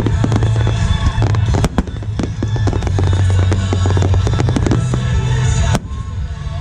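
A fireworks finale barrage: many shells and stars bursting in quick succession, several bangs a second over a continuous low rumble. One last big bang comes near the end, after which the barrage thins out.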